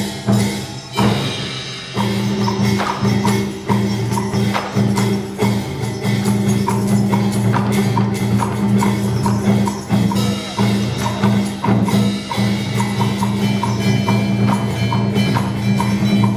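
Traditional Vietnamese music played live by the water puppet ensemble. A wood block keeps a steady beat of about two strikes a second over sustained low notes, and the low notes break off briefly about a second in.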